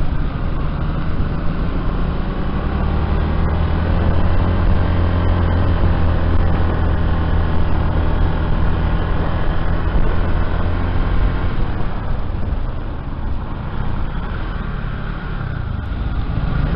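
Engine of a moving vehicle running steadily as it drives along a road, with road and wind noise. It gets a little louder a few seconds in and eases off again later.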